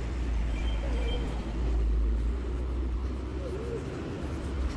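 Steady low outdoor rumble of general street or seafront ambience, with a couple of faint short high chirps about a second in.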